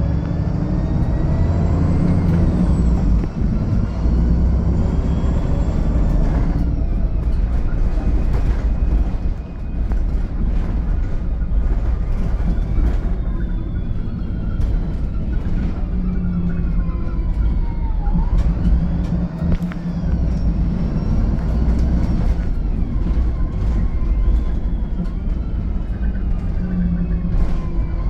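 VDL SB200 Wright Pulsar 2 single-deck bus under way, its diesel engine running with a high whine that rises and falls in pitch as the bus speeds up and slows. This whine is the vacuum-cleaner-like sound behind its 'Hoover' nickname. The whine falls to a low point about two-thirds of the way through, then climbs again.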